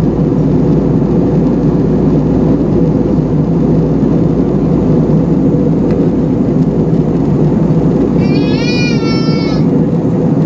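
Steady cabin roar of an Airbus A320-family jetliner in cruise, the engine and airflow noise heard from a window seat. About eight seconds in, a short, high-pitched wavering cry from a small child rises over it for a second or so.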